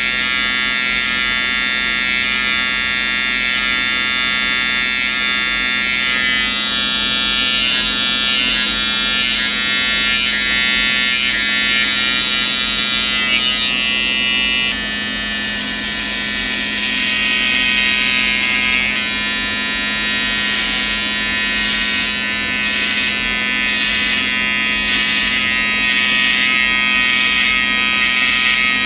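Electric hair trimmer buzzing steadily as it cuts short afro hair. About halfway through the buzz changes abruptly and drops a little in level.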